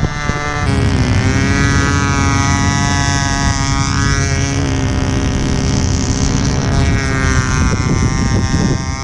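Enya 61 glow engine of a control-line stunt plane running at full power in flight, its pitch sagging and rising every few seconds as the plane climbs and dives through the manoeuvre. Wind rumbles on the microphone underneath.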